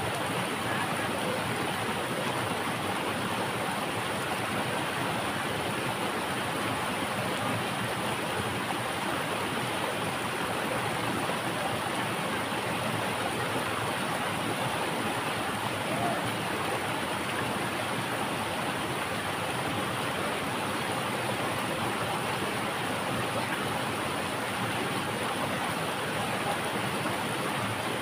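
Shallow rocky stream rushing and splashing over boulders in small rapids, a steady even rush of water.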